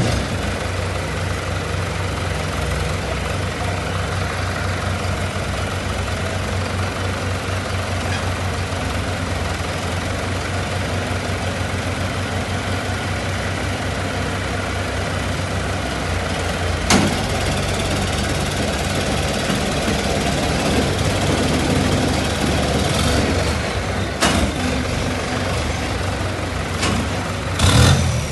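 Diesel engines of a New Holland 7500 and an old Ford 5630 tractor running steadily while the tractors pull against each other on a chain, with a low pulsing rumble. A few sharp knocks sound partway through and near the end.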